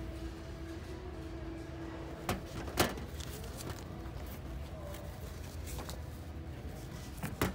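Steady store background hum with a few sharp knocks: two close together about two and a half seconds in, and one near the end. These fit the sneaker and phone bumping against the metal store shelf as the shoe is handled.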